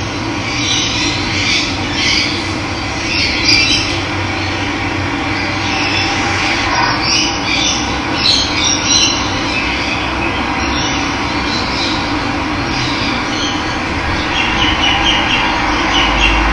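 Steady rush of running water with birds chirping and calling over it.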